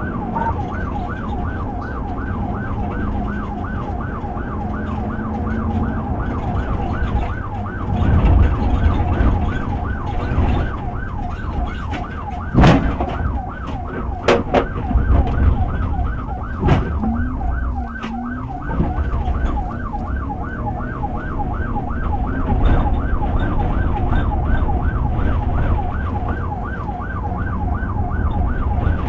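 Police car siren on yelp, a fast rising sweep repeating about three times a second, over steady engine and road noise during a high-speed pursuit. A few sharp clicks come about halfway through.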